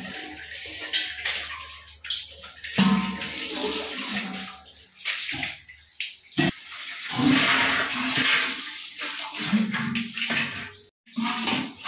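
Water running from a hose and splashing on a floor while stainless steel pots are scrubbed and rinsed, with scattered knocks of the metal vessels.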